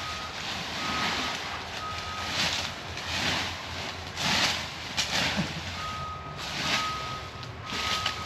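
Skid steer's backup alarm beeping about once a second while the machine reverses: three beeps, a pause of a few seconds, then beeping again from about six seconds in, over a rushing noise that swells and fades.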